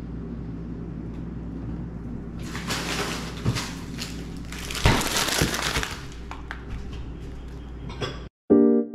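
Plastic food packaging crinkling and rustling as it is taken out of a refrigerator's freezer, with a sharp knock about five seconds in as the freezer door is pushed shut, over a steady low hum. Piano music starts near the end.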